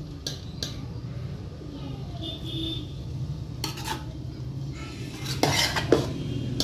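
Metal spoon scraping and clinking against a metal pot as par-boiled basmati rice is spooned in for the next biryani layer. A few sharp knocks stand out, the loudest about five and a half to six seconds in, over a steady low hum.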